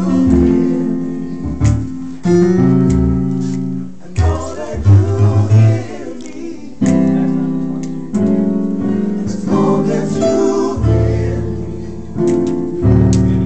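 Live band playing through a song at a sound check: held keyboard chords over deep bass notes, with guitar, the chords changing every second or two.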